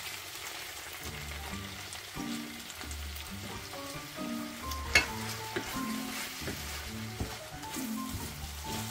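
Beef strips, peppers and onions sizzling in a nonstick frying pan as a little water is poured in, then stirred with a wooden spatula. A sharp knock about halfway through.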